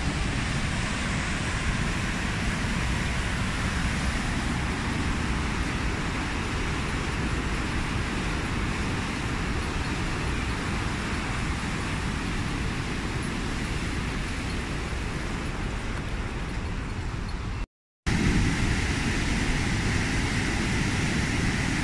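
Steady roar of water discharging through the Génissiat dam's spillway gates on the Rhône, with a brief break near the end.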